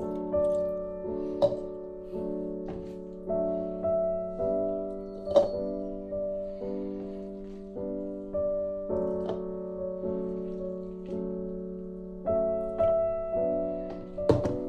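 Background piano music playing gentle, slowly changing chords that ring and fade, about one to two a second. A few sharp clicks cut through, the loudest about five seconds in.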